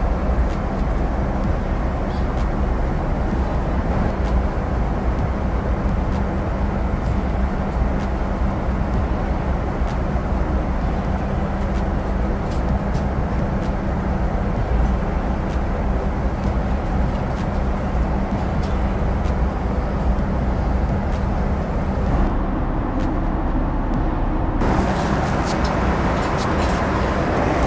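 Steady cabin noise of a Boeing 777-200ER at cruise altitude: the constant rush of airflow and engines heard from inside the cabin, with a low hum underneath.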